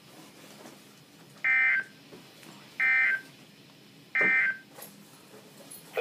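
Weather alert radio's speaker sounding the EAS/SAME end-of-message data bursts: three short, harsh digital buzzes about a second and a half apart, marking the end of the severe thunderstorm warning broadcast.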